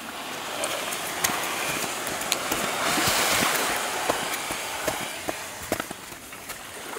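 Wooden outrigger canoe hull scraping over beach sand as it is pushed ashore: a hissing scrape that swells to its loudest in the middle and fades, with scattered light knocks.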